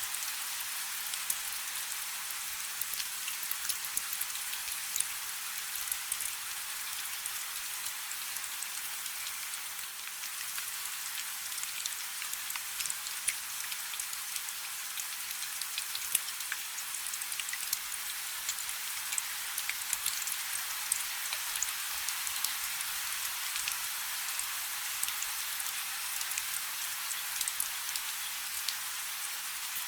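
Steady rain falling: an even hiss with a constant patter of small drop ticks.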